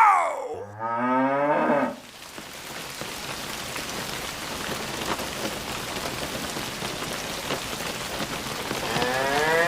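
Steady rain falling. A cow moos about half a second in and lasts for just over a second, and another pitched call rises and falls near the end.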